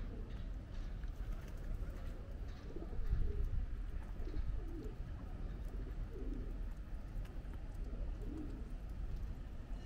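Feral pigeons cooing: a series of short, low coos repeating every second or two over a steady low rumble.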